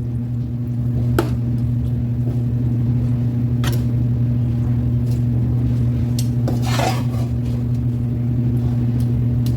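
Kitchen utensils clink against a pan, once about a second in and again near four seconds, with a longer scrape near seven seconds. A steady low hum runs under them.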